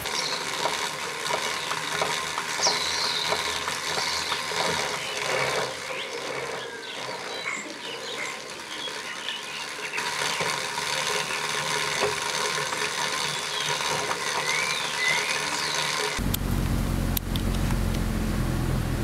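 Bicycles riding along a country road, with a steady outdoor hiss, short high chirps and faint light ticks. About sixteen seconds in it changes suddenly to the low, steady road rumble inside a moving car.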